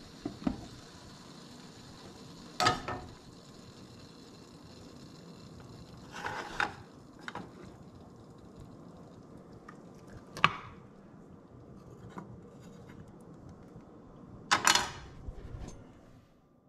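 Metal clinks and knocks from a stovetop egg-poacher pan as its lid is lifted off and the egg cups are handled: a handful of sharp clacks a few seconds apart, the loudest near the end, over a faint steady hiss.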